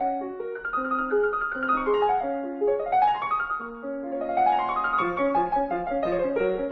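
Background piano music: quick runs of notes climbing and falling over steady lower notes.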